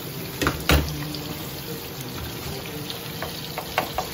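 Onion and spice masala sizzling steadily in a frying pan as it is stirred with a wooden spatula, with a few knocks of the spatula against the pan, the loudest about three-quarters of a second in and several more near the end.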